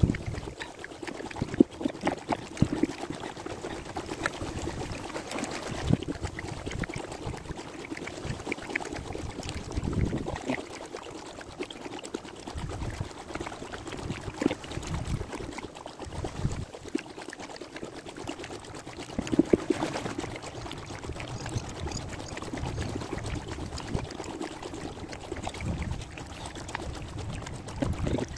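Kayak paddle strokes in canal water: the blades dip in and water pours and trickles off them in an uneven rhythm.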